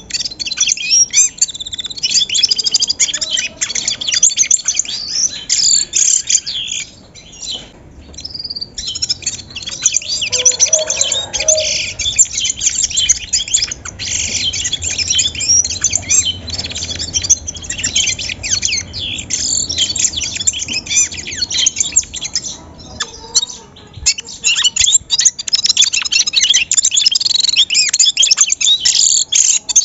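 Brambling singing loudly, a dense run of quick twittering chirps with short breaks about eight seconds in and again near the end.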